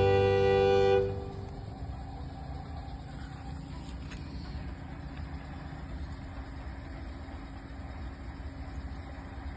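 A loud held tone with many overtones, horn-like, stops about a second in. It is followed by a quieter low, steady rumble with a faint hum, like an idling vehicle or traffic.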